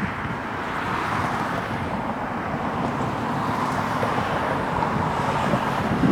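Steady, even roar of jet aircraft engines.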